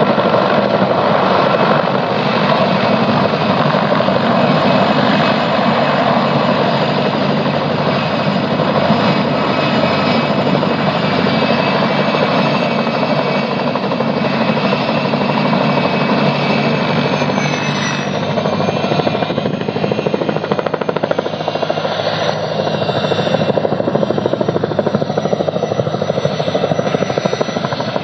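Steady whirring of spinning rotors and motors, a dense continuous noise with thin high whining tones that slide down in pitch about 17 seconds in.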